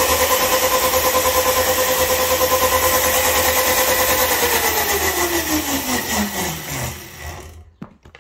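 Funbikes 36V 800W electric quad bike's motor running flat out with a steady whine, spinning the rear wheel with the key switch disconnected: a faulty controller is sending battery power straight to the motor. About four seconds in, the whine drops steadily in pitch and fades as the motor and wheel wind down to a stop.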